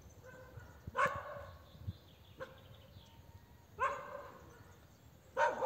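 A small dog barking: three short, separate barks with pauses of a few seconds between them.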